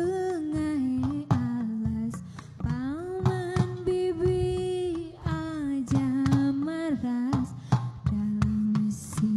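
Traditional Sintren accompaniment music: a voice singing long, sliding notes over sharp, frequent percussion strikes.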